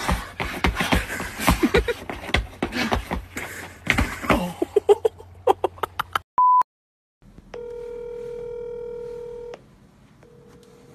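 Shoes scuffing and slipping on an icy slab in a quick run of scrapes and knocks, with a loud knock about four seconds in as the man falls. After a short high beep and a moment of silence, a phone call's ringing tone sounds through a phone speaker for about two seconds, and a fainter ring starts near the end.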